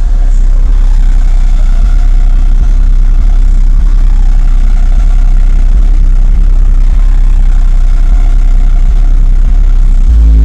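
Car audio subwoofers in a VW Caddy playing a very loud, steady deep bass tone, strong enough to blow long hair about, with a rough rattly haze above it. Just before the end the bass gets louder as music comes in.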